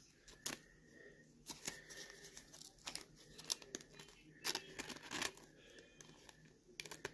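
Faint crinkling and crackling of a thin clear plastic card sleeve as a baseball card is slid into it, in short irregular crackles.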